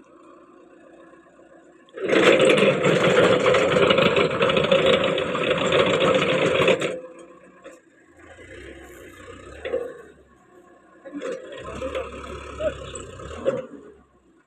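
Sonalika tractor's engine working hard as its rear-mounted post-hole auger bores into sandy soil: a loud burst of about five seconds starting two seconds in, then two shorter, quieter bursts with a low rumble near the end.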